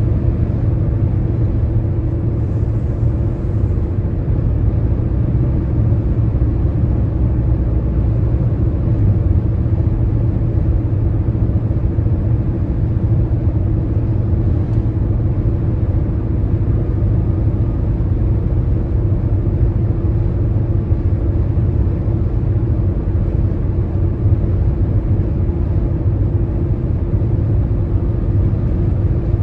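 Car driving at highway speed: a steady, low rumble of road and engine noise that stays even throughout.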